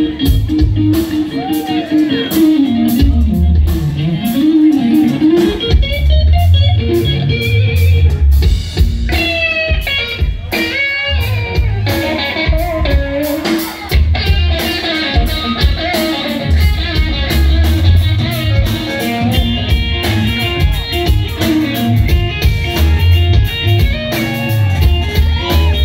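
Live rock band jamming with no vocals: an electric guitar plays a lead line with bent, gliding notes over a bass guitar line and drums.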